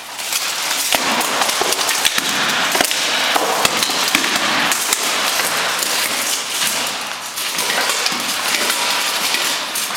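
Steel plate armour clanking and clattering as two armoured fighters clash and grapple, with many sharp metallic knocks of blows and impacts throughout.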